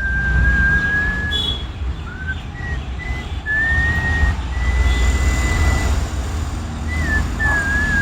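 Parrots whistling a run of long, steady notes with short slides up and down between them, over a steady low rumble.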